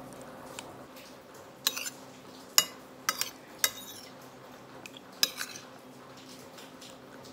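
A metal spoon clinking and scraping against a glass soup plate while eating: about six sharp clinks, a few with a short ring, spread between quiet stretches, over a faint steady hum.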